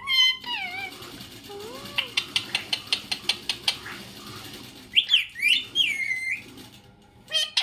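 Pet parrot whistling and calling: short arching whistles, a rapid run of clicks at about six a second, then a few loud, harsh calls about five seconds in.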